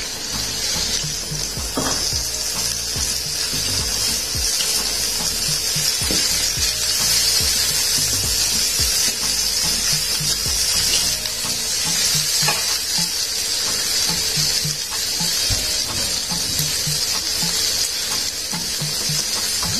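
Chopped shallots, chillies and tomato sizzling in hot oil in a wok, with a steady high hiss, as a slotted spatula stirs them and now and then scrapes the pan.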